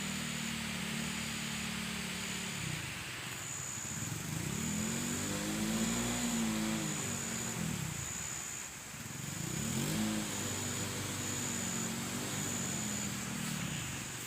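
Motorcycle engine running under load, its pitch rising and falling several times as the throttle is opened and eased off on a slippery dirt road.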